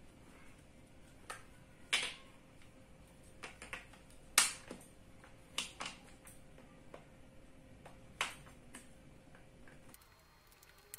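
Large plastic toy building bricks clicking and knocking as they are handled and pressed together: a dozen or so sharp, irregularly spaced clicks, the loudest about four seconds in.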